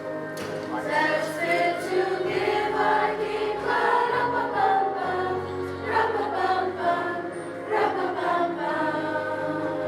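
Middle school choir singing in many voices, over low sustained notes that change every few seconds.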